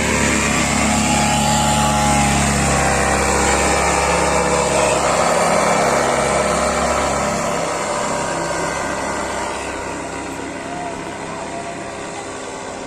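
A small engine running hard, its pitch wavering, over a rushing noise. It grows quieter over the last several seconds.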